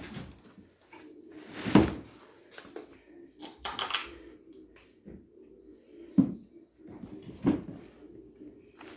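Plastic housing of a semi-automatic washing machine being handled and turned over: a few separate knocks and thuds with a short scrape between them.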